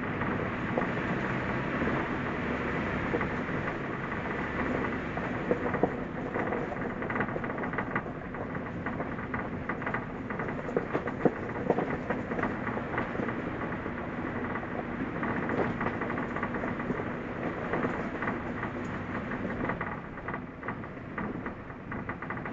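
Suzuki Jimny driving on a forest road: a steady rumble of engine and tyre noise, with scattered small knocks and crackles from the road surface.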